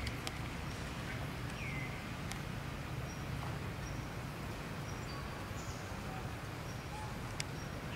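Quiet outdoor forest ambience: a steady low rumble with a few light ticks and two short high chirps that drop in pitch, one about two seconds in and one at the end.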